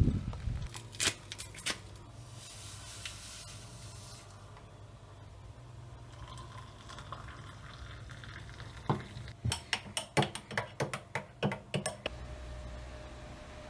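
Instant coffee powder tipped from a sachet into a ceramic mug with a soft hiss, then a metal teaspoon stirring the drink and clinking quickly against the inside of the mug, about four clinks a second, for a few seconds near the end.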